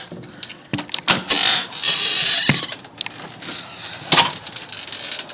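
Handling noise as a webcam recording setup is picked up and carried: rustling with several sharp clicks and knocks, loudest about a second or two in.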